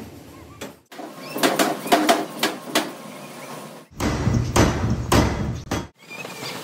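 Repeated hammer blows on metal, about two to three knocks a second, with abrupt cuts between short clips about a second in, near four seconds and near six seconds.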